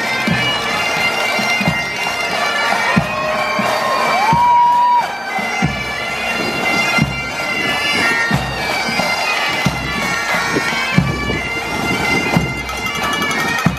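A pipe band's Great Highland bagpipes playing a tune: steady drones under the chanter melody, with a faint crowd behind.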